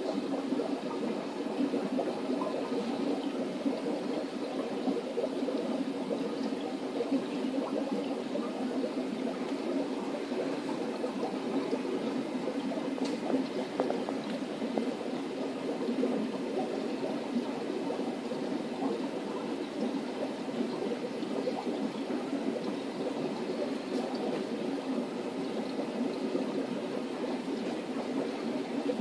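Steady bubbling and trickling of aquarium water from air-driven sponge filters running in the tanks.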